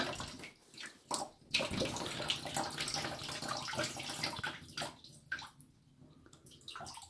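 Water running and splashing into a bathtub, with a few sharp knocks early on, thinning out about five seconds in. It is water still coming from a water heater's drain valve that won't shut off fully after a flush.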